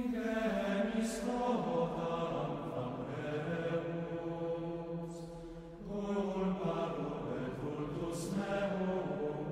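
Chanted vocal music: sung voices holding long notes that move from pitch to pitch, with a new phrase beginning about six seconds in.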